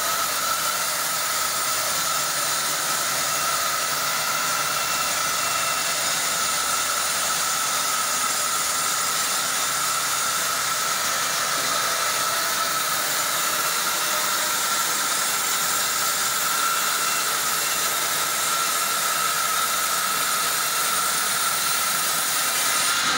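Horizontal band sawmill cutting dry valonia oak, its band blade running through the log in a steady loud hiss with a thin steady whine over it.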